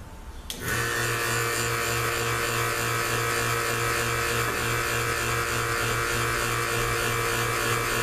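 An electric vacuum pump clicks on about half a second in and then runs steadily, a hum with a hiss over it. It is pulling vacuum on a 4L80E valve body to leak-test the actuator feed limit valve bore.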